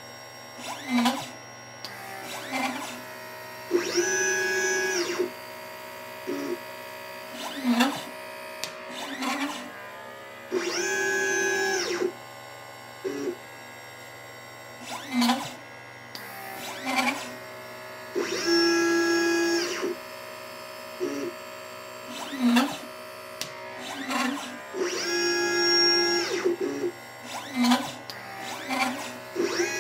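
LitePlacer pick-and-place machine's stepper motors whining as the gantry moves in a repeating cycle while placing capacitors and resistors. About every seven seconds there is a longer travel whose pitch ramps up, holds and ramps down, with short whirring blips of smaller moves in between.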